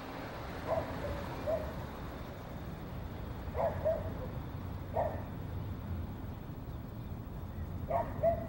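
Short animal calls, singly and in pairs, about seven in all spread over a few seconds, over a low steady rumble, with no music.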